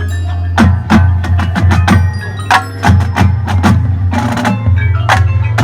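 Marching band music: a quick, uneven run of sharp percussion strikes with ringing pitched notes over a steady low bass.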